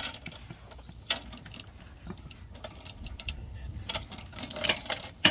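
Scattered metal clicks and clinks of nuts and small hand tools being handled, with a single sharp click about a second in and a quick run of clicks near the end.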